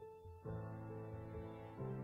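Background piano music: slow, held chords, a new one struck about half a second in and another near the end.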